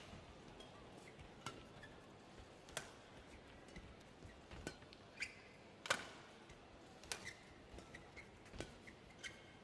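Badminton rally: sharp cracks of rackets striking the shuttlecock about once a second, with brief squeaks of court shoes on the mat between shots.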